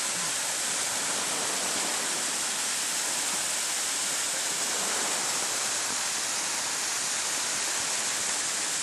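Small waterfall pouring down a rock face: a steady, even rush of water.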